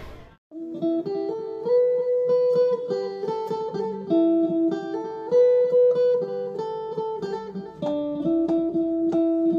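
Background music: a guitar picking out a melody of single plucked notes, starting about half a second in after a brief gap.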